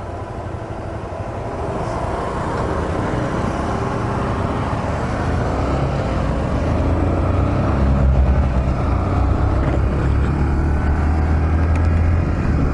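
Small motorcycle riding along the road, engine running with wind and road noise, growing louder over the first several seconds as it picks up speed.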